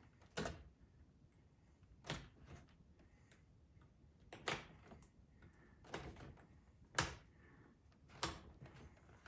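Six sharp knocks and taps at irregular intervals, about one every second and a half, as the leather seat and tools are worked on a saddle.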